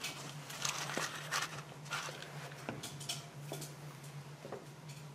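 Steady low hum with scattered faint, irregular clicks and small taps.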